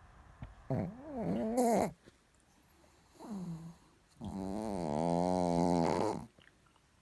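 Sleeping chihuahua snoring: three pitched, wavering snores, a short falling one between a one-second snore near the start and a longer two-second one near the end.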